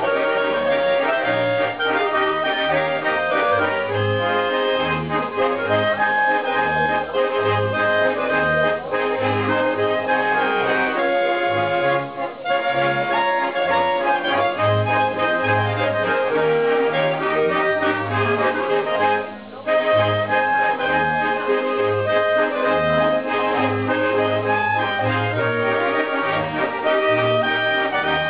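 Small folk band playing: accordion and clarinets carry the tune over double bass notes on a steady beat. The music dips briefly twice, about twelve seconds in and again near twenty seconds.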